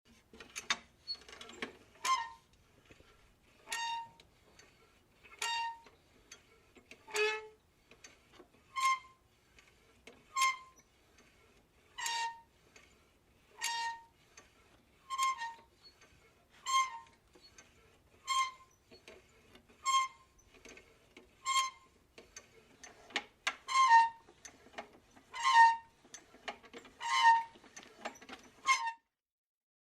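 A squeaky handle being worked back and forth, giving a short high squeak about every one and a half seconds. The last few squeaks are louder.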